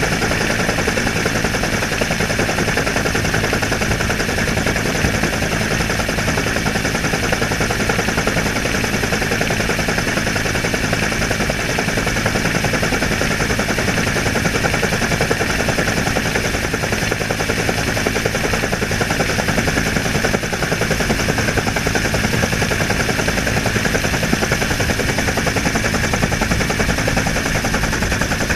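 Helicopter in flight: steady rotor chop and engine noise, a rapid, even beating. It is picked up by a camera mounted outside on the skid.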